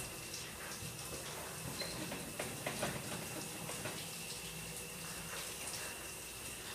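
Water running from a tap into a sink, a steady splashing hiss with a few small knocks and splashes, over a thin steady high whine.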